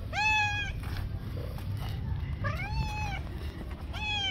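Tabby cat meowing three times: short calls that rise in pitch and then level off, the last cut short at the end. A low steady rumble runs underneath.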